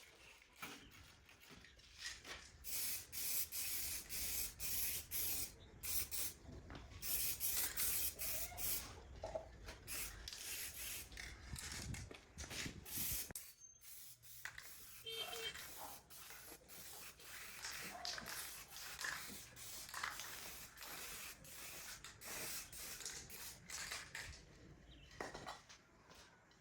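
Quick, repeated rasping strokes of a part being scrubbed by hand, with a short pause about halfway through.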